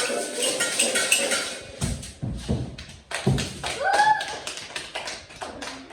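Improvised percussion on household objects such as cutlery and dishes. It starts as quick, evenly spaced taps that ring like metal or glass, then turns into irregular knocks and thumps. A short rising pitched sound comes about four seconds in.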